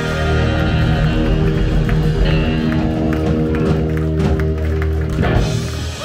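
Rock-and-roll band playing live, with electric guitar, bass and drums, and a loud band hit about five seconds in.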